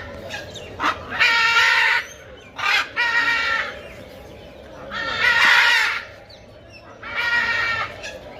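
Repeated animal calls: four loud, drawn-out calls of about a second each, with two short sharp calls between the first ones.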